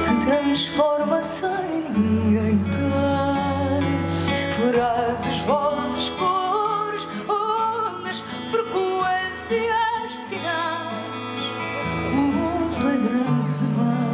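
A woman sings a slow, tender song live, her voice wavering with vibrato on held notes, backed by a band with held bass notes and guitar.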